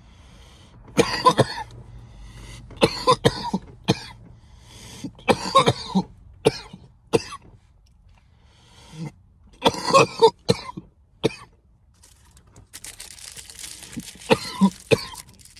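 A man coughing over and over in short bouts of a few coughs each, after inhaling vape smoke.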